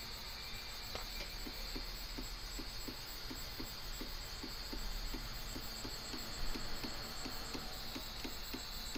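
Portabee 3D printer's extruder stepper motor feeding filament through the hot end, ticking evenly about three times a second over a steady high whine as molten filament comes out of the nozzle.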